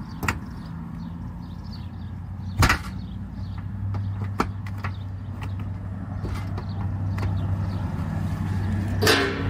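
Hands knocking and pressing on a cracked plastic car bumper cover, giving a few sharp knocks (the loudest about two and a half seconds in) and a louder rough burst near the end, over a low steady hum.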